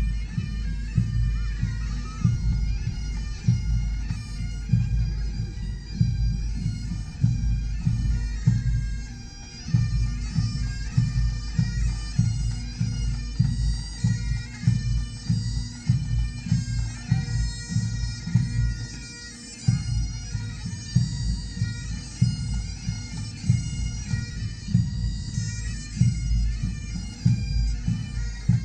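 Bagpipes playing a tune over their steady drones, with an uneven low rumble underneath.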